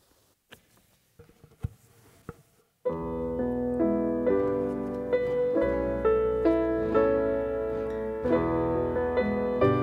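A few faint clicks and knocks, then about three seconds in a piano starts playing chords with a melody line, continuing steadily.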